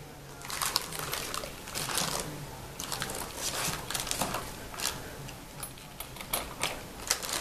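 Thin plastic wrapping crinkling and rustling in irregular spurts, with a few light clicks, as a wrapped diecast model part is handled and pulled from a styrofoam tray.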